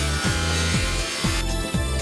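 Background electronic music with a steady beat, a drum hit about every half second over a held bass. A rasping noise under it stops about one and a half seconds in.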